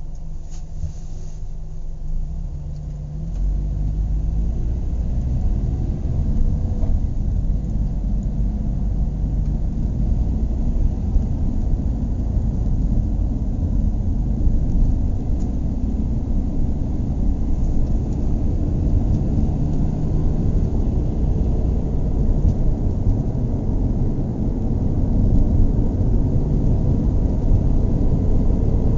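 Car engine running with a low, steady rumble that grows louder about three seconds in.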